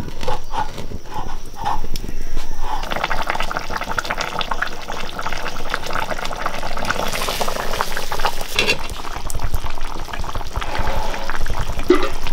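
Fish curry boiling in a pan, its bubbles popping. The popping is spaced out at first and turns into a busy, steady bubbling after about two seconds.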